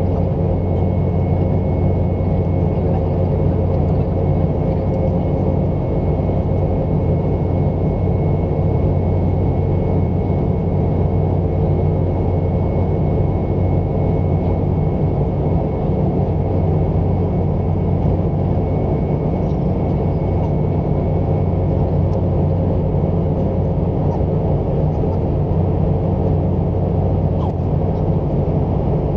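Steady jet noise of a Boeing 717 in flight: its two rear-mounted BMW Rolls-Royce BR715 turbofans running with airflow rush, an even low drone with a faint steady whine on top.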